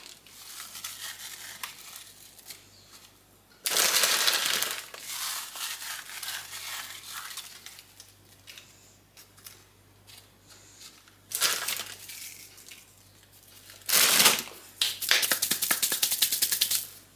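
Oreo cookies crushed and crumbled by hand with small crackling crunches, and the plastic Oreo packet crinkling in a few louder rustling bursts. Near the end comes a quick run of dry ticks as crumbs are brushed off the hands.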